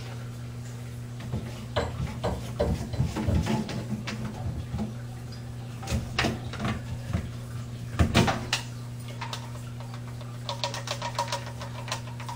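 Clicks, knocks and rattles of hard objects being handled, over a steady low hum. The loudest knocks come about eight seconds in, and a quick run of ticks follows near the end.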